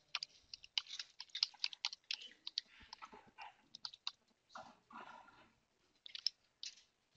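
Computer keyboard keys being typed in quick, irregular clicks, thinning to a few scattered keystrokes in the last couple of seconds.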